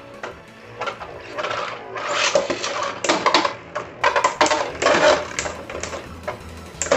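Beyblade spinning tops clashing and scraping against each other in a plastic stadium. The hits come as irregular clacks and rattles several times a second, busiest around the middle of the stretch.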